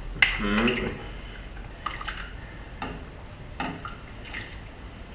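A spatula scraping and tapping on a ceramic serving platter as diced potatoes and carrots are pushed off it into a pot of stock, with a few separate light clicks and knocks.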